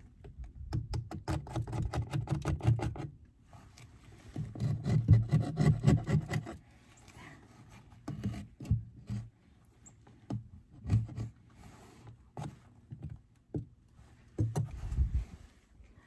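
Metal hive tool scraping propolis off the wooden edge of a Layens hive frame, in two runs of quick repeated strokes over the first six or so seconds, then scattered single scrapes and knocks.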